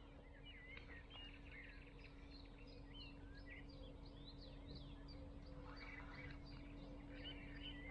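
Faint birdsong: many short chirps and whistles overlapping throughout, over a low steady hum.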